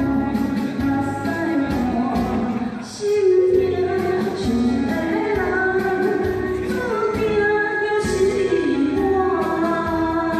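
Singing over instrumental backing music: a Taiwanese Hokkien pop ballad, with sustained sung notes that glide from pitch to pitch.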